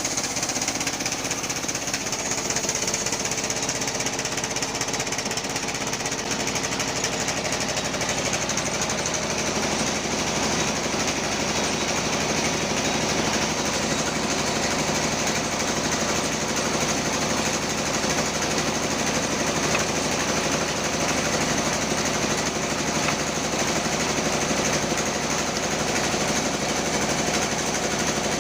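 Band saw ripping a teak log, a loud, steady, dense mechanical noise of the running machine and blade in the wood, turning coarser about nine seconds in.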